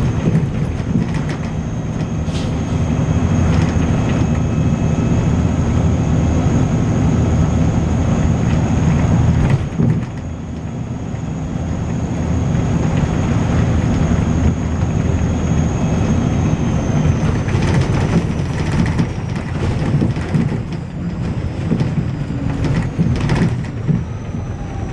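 Volvo B6LE bus running on the move, heard from inside: engine and driveline drone with body rattles, and a steady high-pitched whine that begins to fall in pitch after about 17 seconds. The loudness drops briefly about ten seconds in.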